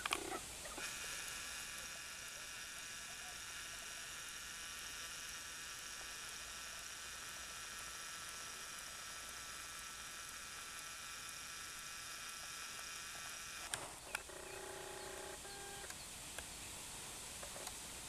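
Camcorder zoom motor whining steadily as the lens zooms in, starting and stopping with a click, over a faint hiss. Shortly after it stops comes a brief two-part pitched sound.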